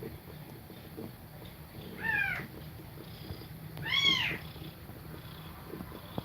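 Kittens mewing, two short high-pitched mews that rise and fall, the second louder, about two seconds apart, over a low steady rumble.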